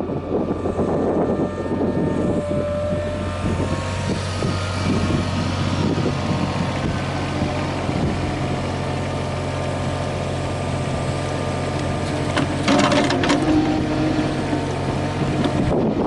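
Yanmar VIO20-1 mini excavator's diesel engine running steadily, with rougher mechanical noise in the first few seconds and a brief louder burst of rattling about twelve seconds in.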